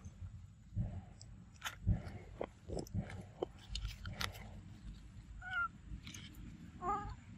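Macaques handling and biting into a ripe mango among dry leaves: scattered soft clicks, crackles and wet bites. Near the end come two short wavering squeaks from a baby macaque.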